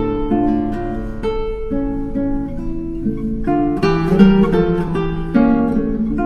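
Background music: a plucked acoustic guitar playing a light melody of short, changing notes.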